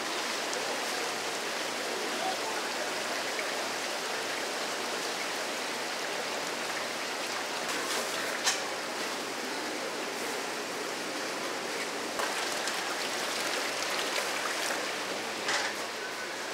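Steady running water, with a sharp knock about eight seconds in and another near the end.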